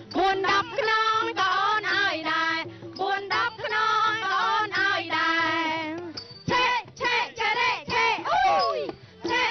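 A group of villagers, women's voices among them, singing a Cambodian folk song in chorus. They are accompanied by a violin and a plucked long-necked lute, with a few sliding, falling vocal cries near the end.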